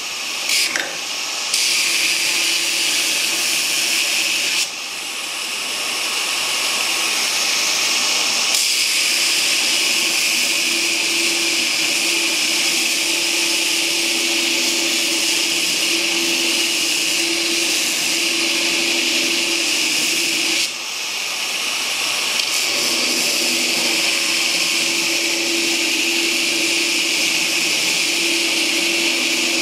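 Knife belt grinder running at full speed with steel pressed against the belt: a steady, loud grinding hiss over the motor's hum under load. The grinding dips briefly a few times, just after the start, near five seconds and around twenty-one seconds, then resumes.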